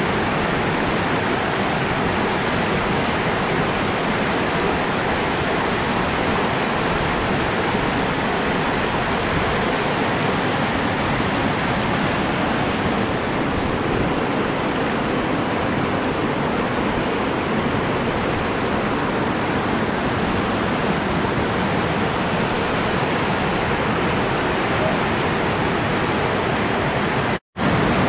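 Whitewater river rapids rushing steadily, a continuous loud wash of churning water. The sound cuts out for an instant near the end.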